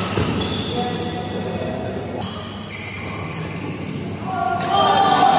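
Sounds of a badminton rally on an indoor court: a few sharp racket-on-shuttlecock hits and shoe squeaks on the court floor, over hall chatter, loudest near the end.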